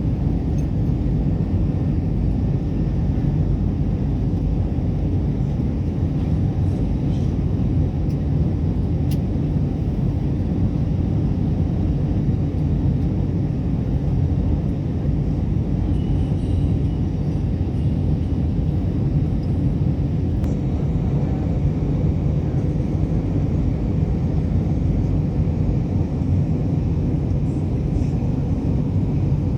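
Steady low rumble inside an airliner cabin during descent: jet engine and airflow drone at an even level.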